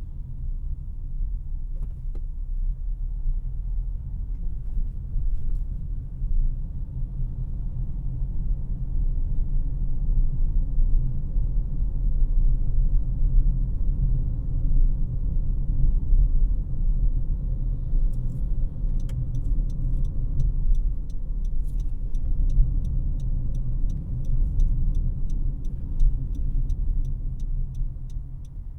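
Cabin rumble of a 2018 Honda CR-V LX driving on the road, with tyre and engine noise from its 2.4-litre four-cylinder, growing a little louder about a third of the way in. A little past halfway an even ticking of about two a second starts and keeps going, typical of the turn-signal indicator.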